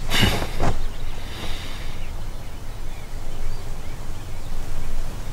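Steady, low wind-like rumble of outdoor ambience, opening with a brief rushing whoosh in the first second, with faint high chirps above it.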